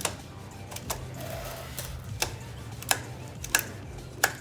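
Craftsman string trimmer head clicking as its knob is turned clockwise by hand, ratcheting to wind the new cutting line in: about seven sharp clicks at uneven intervals, roughly one every half second to second.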